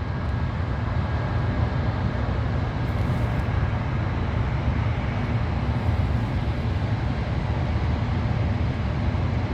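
Steady low rumble with an even hiss over it, unbroken and without distinct events.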